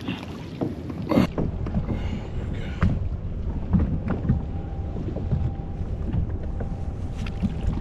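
Water rushing and slapping against a kayak hull with wind buffeting the microphone, as a hooked fish pulls the kayak along, plus a few short knocks, one clear one about a second in.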